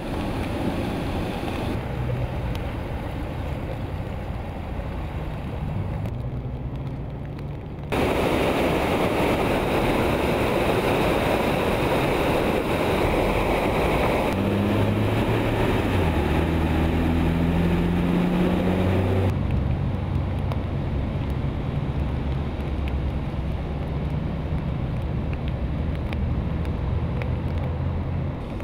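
Vehicle engine running under a steady rushing noise, its low hum shifting pitch up and down. The sound changes abruptly twice, about a third and two thirds of the way in, the middle stretch louder and more rushing.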